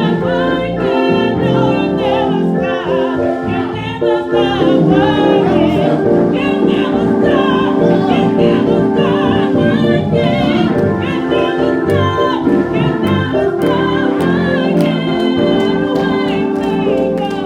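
Choir singing with instrumental accompaniment, a slow sustained gospel-style song.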